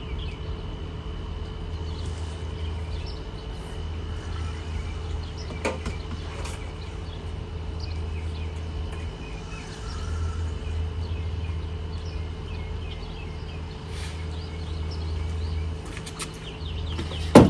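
Outdoor ambience: a steady low rumble with scattered faint bird chirps and a single sharp click near the end.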